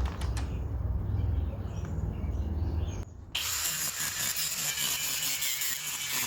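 A low rumble, then about three seconds in a brief gap and a power tool starts up, running with a steady high-pitched grinding noise as it cuts the heads off rivets holding a metal patch to a plastic wheel well.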